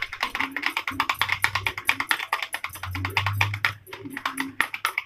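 Fork beating raw eggs in a plastic bowl: a fast, even clatter of the fork striking the bowl, about seven strokes a second.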